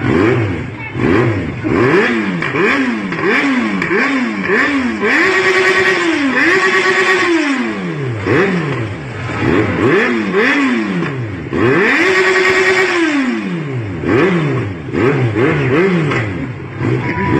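An engine, likely a motorcycle's, revved over and over in quick blips. Its pitch rises and falls about once or twice a second. Twice it is held high for a moment and then slowly winds down.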